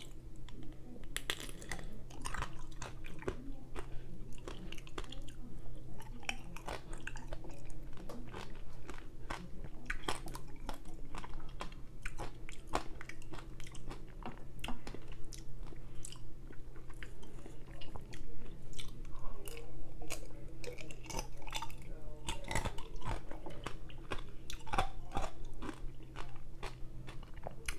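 Close-miked chewing and biting of chocolate-dipped strawberries: a dense run of quick wet clicks and crunches, over a faint steady hum.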